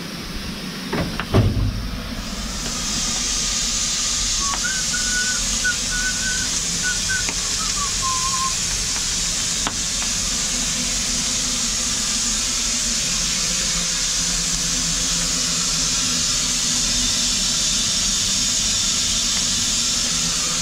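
Steady hiss of steam from a steam locomotive, coming in about two seconds in and holding without a break.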